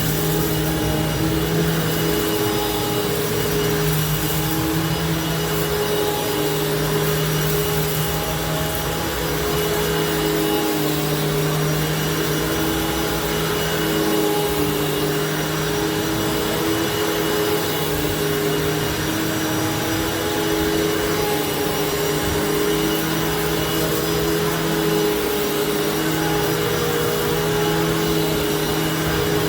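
Hoover WidePath Fold Away bagless upright vacuum cleaner running steadily, its motor giving a constant hum with a high whine above it.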